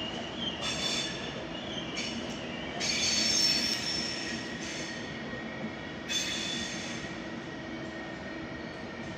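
Passenger train's steel wheels squealing on the rails in several high-pitched bouts, loudest about three to four seconds in, over the steady rumble of the train.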